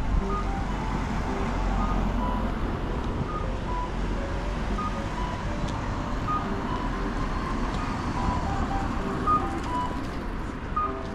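Road traffic running close by, with a low steady rumble. A simple melody of short, high notes plays over it.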